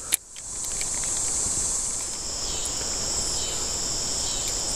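Steady, high-pitched buzzing chorus of summer insects. A second, slightly lower insect voice joins about two seconds in. The sound drops out briefly right at the start.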